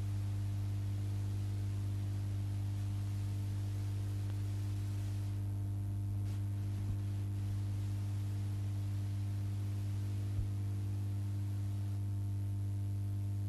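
Steady electrical mains hum with a stack of overtones over faint hiss, from video tape playback running past the end of the recorded programme with no signal. Two faint clicks come about seven and ten seconds in.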